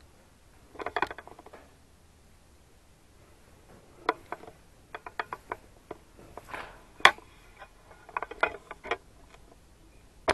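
Scattered clicks and scuffs of people moving about on the gritty stone floor of a small rock-cut chamber, with the loudest click about seven seconds in.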